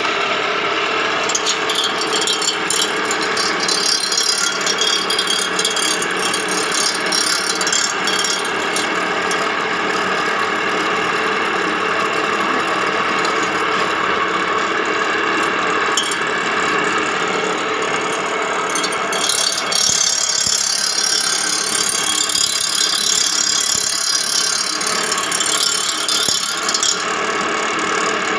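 Reel grinder spin-grinding a greensmower's cylinder reel: a steady metallic rattle with a grinding hiss as the reel spins against the wheel. The high hiss grows stronger about two-thirds of the way through, then eases near the end.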